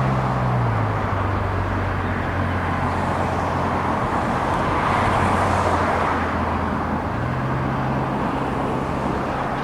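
Diesel locomotive engine of a Union Pacific GE C45ACCTE running with a steady low drone, its pitch dropping about a second in and rising again about seven seconds in as the throttle changes, over a steady traffic hiss that swells midway. No horn is sounding.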